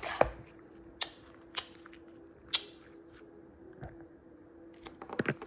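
Slime being squeezed and handled, giving a few short, sharp squishy pops spread apart, then a quick cluster of them near the end.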